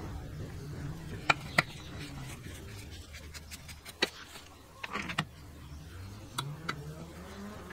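Screwdriver working a screw on the linkage of a Robin EC10 two-stroke engine: a series of separate sharp metallic clicks and clinks as tool and engine parts knock together, about half a dozen spread across a few seconds.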